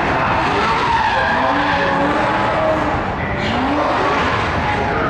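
Several BMW drift cars sliding sideways through a corner together, their engines revving up again and again over the hiss and squeal of skidding tyres.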